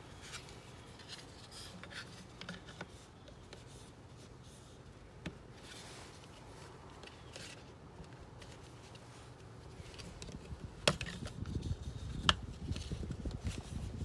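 Faint plastic handling sounds as a Ring Video Doorbell 2 is fitted onto its mounting bracket: light rubbing and tapping, then two sharp clicks about a second and a half apart in the last few seconds.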